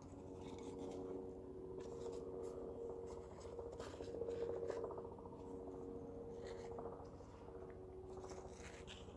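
Damp paper towel rustling and crinkling as it is lifted from a jar and opened out, in irregular crackles that are busiest about four to five seconds in. Under it runs a steady hum of a few held tones.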